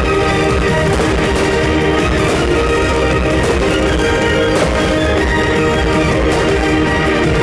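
Music playing loudly, with sustained instrumental notes.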